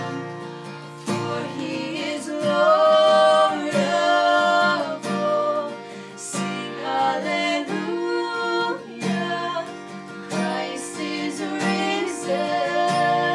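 A woman singing a worship song while strumming an acoustic guitar.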